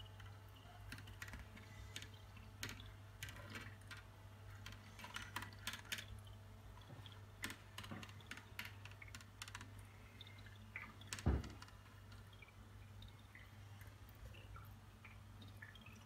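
Irregular light clicks and taps of hands handling the plastic water tank and cap of an Amir 2.8 L ultrasonic humidifier, with one louder thump about eleven seconds in, over a steady low hum.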